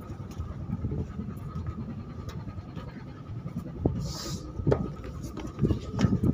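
Wind buffeting the phone's microphone on a ship's open deck at sea: an irregular low rumble under a faint steady high whine, with a short hiss about four seconds in and a few heavier gusts near the end.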